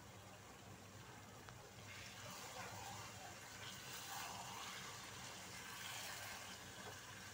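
A spatula stirring thick chicken curry in a nonstick frying pan: a wet, sloshing sizzle that swells unevenly, starting about two seconds in.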